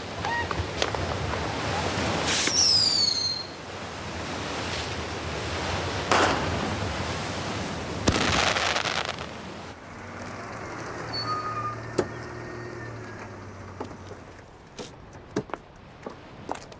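Fireworks: loud bursts and crackling, with a rocket's whistle falling in pitch about two and a half seconds in. About ten seconds in it turns quieter, with a single sharp bang a couple of seconds later and light clicks near the end.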